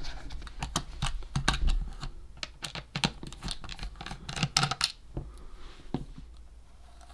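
Small plastic clicks and knocks as a Casio P-810 pocket calculator's case is handled, turned over and set down on a silicone work mat, and a small screwdriver is picked up. The clicks come thick in the first few seconds and thin out toward the end.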